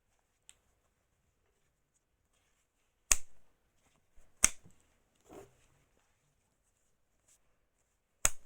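Three sharp balloon pops: two about a second and a half apart, then a third near the end, with softer rustling and knocks of handling in between.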